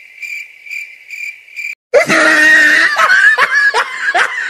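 A thin, high chirping pulses about four times a second, then stops. After a brief gap about halfway in, a girl lets out a loud cough that breaks into quick repeated coughing bursts.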